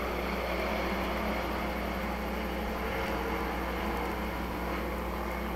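A pack of hobby stock race cars running together on a dirt oval: a steady, distant drone of several engines with no single car standing out.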